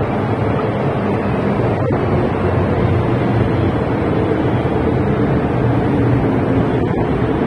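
MTR M-train electric multiple unit moving through an underground station platform behind platform screen doors: steady running noise of wheels on rail and traction equipment.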